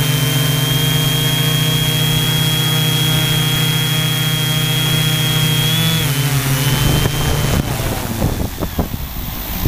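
Six brushless motors (Sunnysky V3508 580Kv) and propellers of a hexacopter sitting on the ground, spinning at idle with a steady high-pitched whine. About six seconds in the pitch shifts and the whine winds down and stops, followed by a few irregular knocks and rustles.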